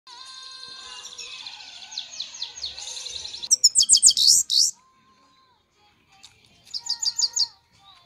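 European goldfinch singing a rapid twittering song of chirps and trills. The song is loudest about halfway through, breaks off for a second or two, then returns in a short burst near the end.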